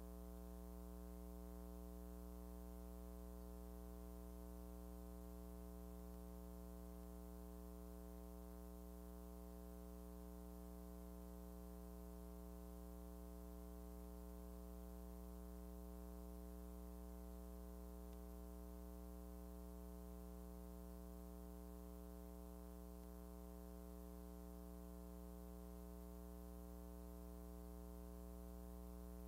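Faint, steady electrical hum with a buzz of many overtones, unchanging throughout, on the soundtrack of a silent film transfer; nothing else is heard.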